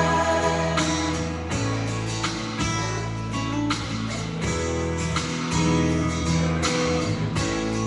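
Karaoke backing track playing an instrumental passage with no singing: strummed acoustic guitar over held chords, with a strum about every half second.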